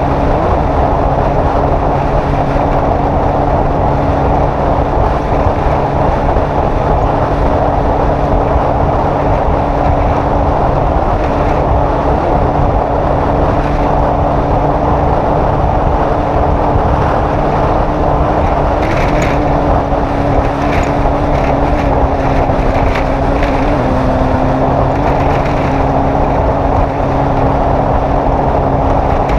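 Off-road race vehicle's engine running at a nearly constant pitch under heavy rushing wind and road noise, as at a steady speed, with scattered short ticks and rattles in the second half.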